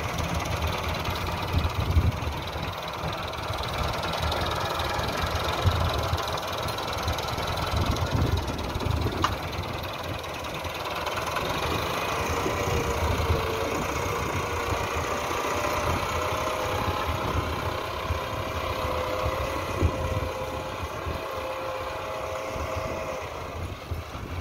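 Massey Ferguson 385's four-cylinder diesel engine running steadily under load, in first gear, as the tractor drags a suhaga (planker) across ploughed soil.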